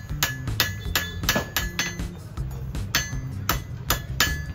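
Blacksmith's hand hammer striking metal on an anvil, about three blows a second with a short pause near the middle, each blow leaving a brief metallic ring.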